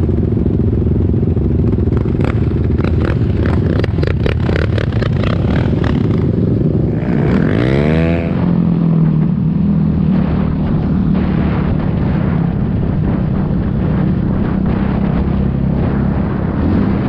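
Yamaha Raptor 700R sport quad's single-cylinder engine under way on a dirt track, heard from the rider's helmet, running steadily with rattles and knocks over the first few seconds and a quick swing in revs about seven seconds in.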